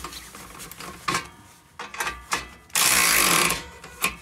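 Mac BRS038 12-volt cordless ratchet running a nut down on an exhaust clamp U-bolt in one burst of just under a second, about two-thirds of the way in, with a few sharp clicks before it and one near the end.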